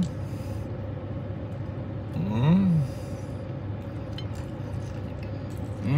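A man's short closed-mouth "mmm" while eating, about two and a half seconds in, rising then falling in pitch. A steady low hum fills the car cabin underneath.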